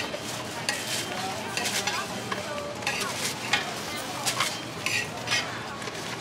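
Raw Fuzhou buns being set down one at a time on a large hot flat frying pan. The pan gives a light steady sizzle, with a short burst of sizzle or a soft tap about once a second as each bun lands.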